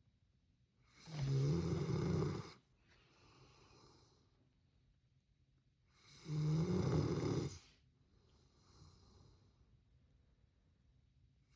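Labrador dog snoring in its sleep: two loud snores about five seconds apart, each followed by a softer breath.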